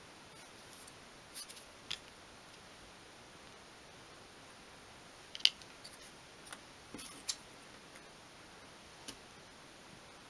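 Light, separate clicks and taps of small thin wooden pieces and a glue stick being handled and set down on a cutting mat, about half a dozen in all, the sharpest one about five and a half seconds in.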